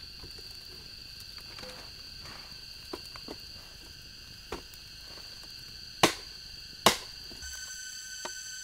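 Steady high-pitched drone of forest insects, with a few sharp cracks, the two loudest about six and seven seconds in. Near the end the drone changes to a fuller chorus of several high tones.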